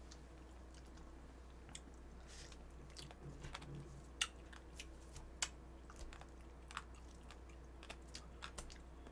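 Quiet eating sounds: chewing, with scattered sharp clicks of chopsticks against grilled fish and plates, over a faint steady hum.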